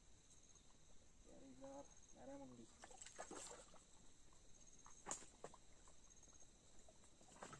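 Near silence: faint outdoor ambience with a steady high hiss and faint pulsing high chirps, a faint two-note call about a second and a half in, and a few soft clicks later on.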